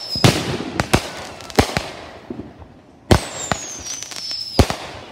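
Backyard consumer fireworks firing aerial shots in quick succession: about eight sharp bangs at uneven intervals, each trailing off in a brief hiss. A thin whistle starts about three seconds in, falls slowly in pitch for a second and a half, and ends in a bang.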